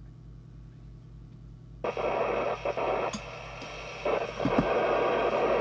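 Lowe TX40 CB radio's receiver hiss from its loudspeaker, switching on abruptly about two seconds in as the front-panel controls are worked, with a few clicks and louder from about four seconds in. A low steady hum runs underneath.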